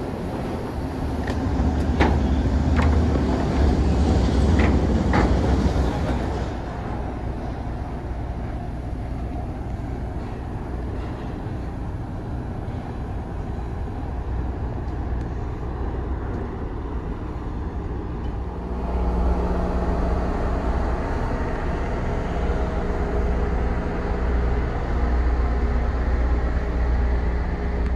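Steady low machinery rumble aboard the car ferry Queen of Oak Bay, with a few sharp knocks in the first few seconds. About two-thirds of the way through it becomes a louder, even hum with a low steady tone.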